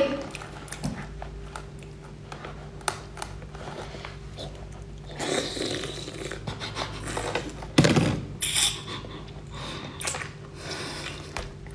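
Close eating sounds: biting and chewing on a stuffed mouthful of braised octopus, in short wet clicks with louder stretches about halfway through and about eight seconds in. A steady low hum runs underneath.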